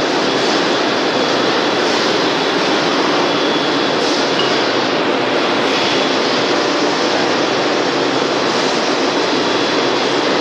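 Six-cavity plastic bottle blow moulding machine and its bottle conveyor line running, a steady, loud, even machine noise with a faint high whine held through it.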